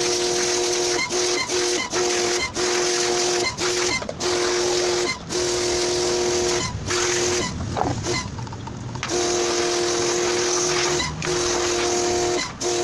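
Electric pressure washer spraying water, a steady motor and pump whine over the hiss of the jet. It stops and restarts in short breaks again and again, with one longer pause just past the middle.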